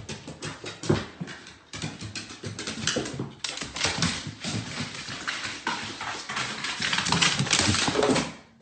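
A dog's paws and claws clattering on hardwood stairs as it goes down them, a quick run of many small knocks and clicks.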